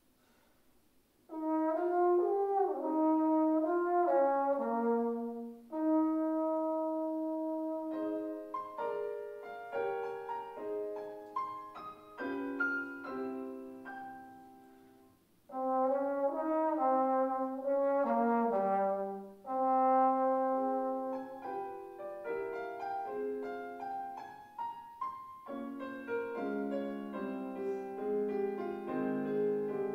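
Trombone playing a melody in held notes, with piano accompaniment; the trombone comes in after about a second of quiet, and near the end the piano carries on alone.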